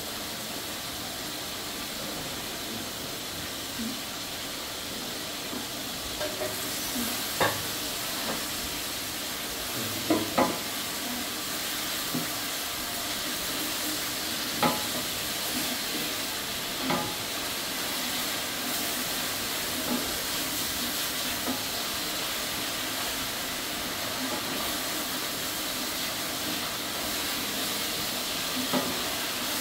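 Wooden spatula stirring rice and water in a large aluminium pot, knocking sharply against the metal side now and then, over a steady hiss.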